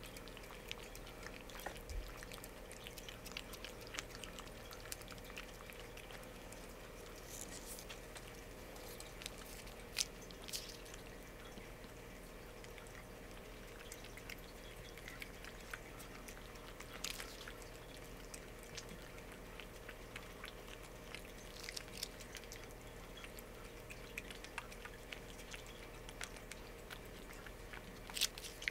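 Cats licking and chewing a treat held out in a hand: faint wet clicks and smacks, a few sharper ones now and then, over a faint steady hum.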